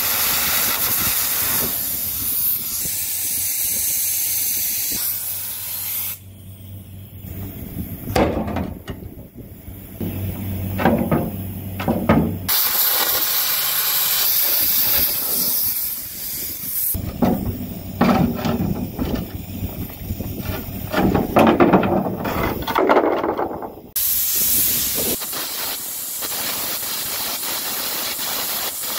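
Air carbon arc gouging through the worn, cracked steel skin of an excavator bucket: a loud jet of compressed air hisses through the carbon-rod arc. Several times it gives way to uneven, spitting crackle as the arc cuts and blows out molten metal.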